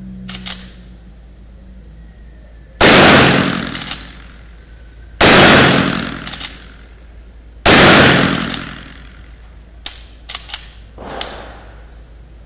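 Marlin 1894 lever-action rifle in .44 Magnum fired three times, about two and a half seconds apart. Each shot rings out for about a second and is followed by a few short clicks, and more scattered clicks come near the end.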